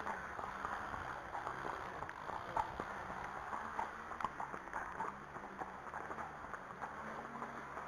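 A chestnut Arabian horse walking on a tarmac lane, its hooves clip-clopping in an irregular stream of sharp strikes over a steady background hiss.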